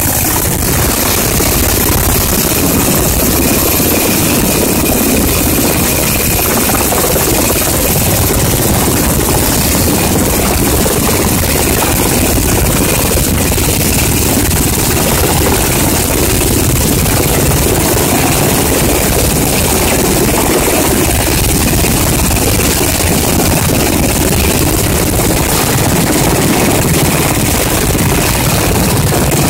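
Sikorsky UH-60 Black Hawk helicopter running on the ground with its main rotor turning, a loud, steady rotor and turbine noise with no change in pitch.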